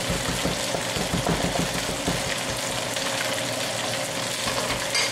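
Steady sizzle of chicken pieces browning in oil in a Dutch oven on the stove, with a few light taps of a cleaver chopping basil on a wooden board.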